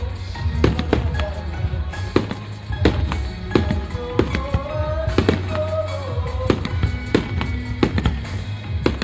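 Aerial firework shells bursting: about a dozen sharp bangs spaced roughly half a second to a second apart, with music playing underneath.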